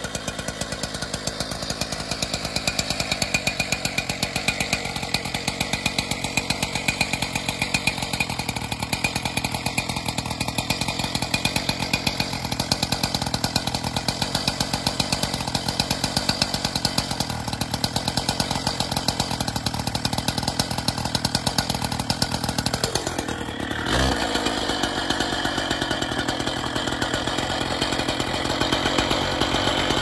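Stihl TS 800 two-stroke cut-off saw running at high revs with a 400 mm diamond wheel, wet-cutting a concrete pillar. The engine speeds up over the first few seconds, then holds steady, with a sudden shift in pitch and a brief knock about three-quarters of the way through.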